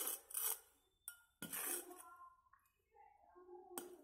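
A few sharp clinks and taps with some scraping, as a small child digs in garden soil by hand among bricks and stones. A soft voice is heard in between.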